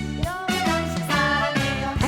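Music: a trot song in live performance, its melody lines sliding between notes over a full accompaniment.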